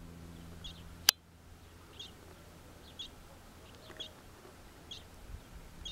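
Small bird chirping in the background, short high notes repeated about once a second. A single sharp click about a second in.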